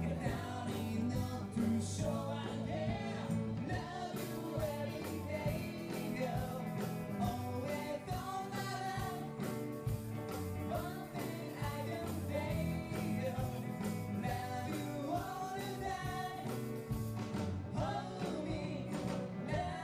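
A live band playing a song, with a singer over the instruments and a steady beat.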